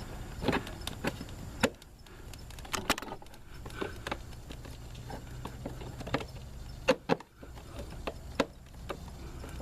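Irregular metallic clicks and knocks of hand tools and bolts being handled during work on a car's transmission, the sharpest knock about seven seconds in, over a faint steady low hum.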